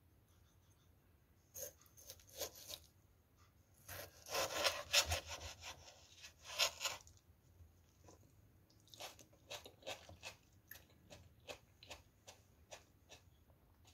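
Large kitchen knife slicing through a tomato on a wooden cutting board: short scraping strokes through the skin and flesh, thickest about halfway through, then a run of light sharp knocks of the blade on the board.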